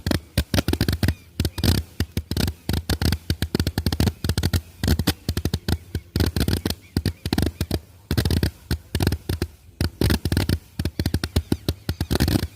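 Homemade 690-shot fireworks mortar firing: a rapid, unbroken string of sharp pops, several a second, that goes on without a pause.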